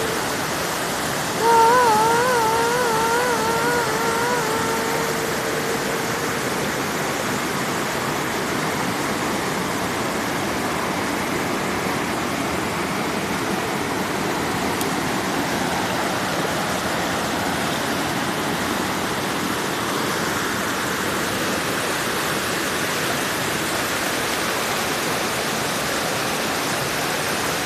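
Steady rush of flowing water, an even hiss-like noise with no pauses. In the first few seconds a clear held tone rises over it, wavering up and down in pitch about three times a second, then holding steady before it fades.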